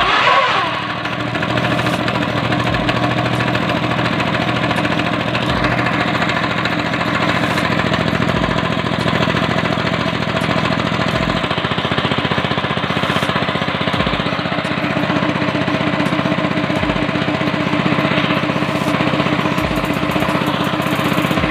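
A 13 hp single-cylinder petrol engine, just started with a home-fitted electric starter, running steadily while driving a belt-driven piston air compressor. It is loudest in the first second, then settles into an even run.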